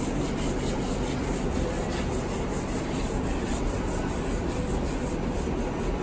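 Wax polish being rubbed back and forth over a metal table top with a gloved hand and pad, an even scrubbing swish. The wax is a release coat so the fiberglass laid on it later will not stick.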